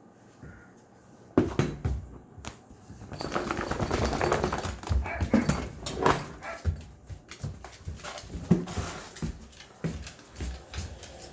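Dog noises and movement: a sudden knock about a second in, then a few seconds of scuffling and clatter, with more sharp knocks near the end.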